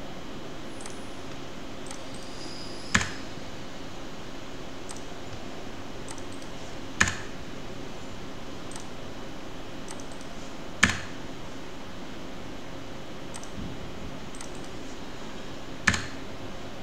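Computer keyboard key presses: four sharp clicks several seconds apart, with a few much fainter clicks between them, over a steady low background hum.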